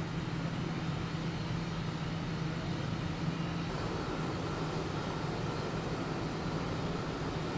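Steady low engine drone with a constant hum, typical of a fire engine's diesel running at the pump; the hum weakens a little about halfway through.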